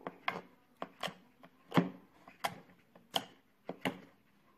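Slime squeezed and pressed by hand, giving a series of sharp clicking pops, roughly one or two a second; this slime makes a strong sound.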